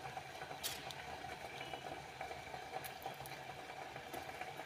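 Gas stove burner flame hissing steadily under corn cobs roasting on a wire grill rack, with a few faint crackles.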